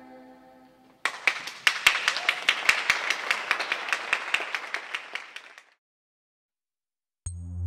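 Audience clapping, starting suddenly about a second in and dying away after about five seconds. The tail of choral music fades out just before it, and electronic music starts near the end.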